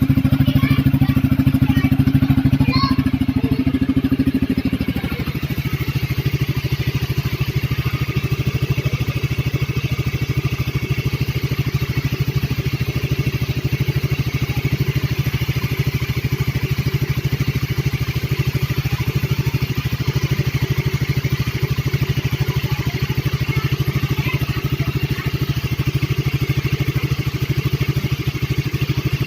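Motorcycle engine running through an aftermarket Reborn canister exhaust, held at raised revs and then dropping back to a steady, evenly pulsing idle about five seconds in.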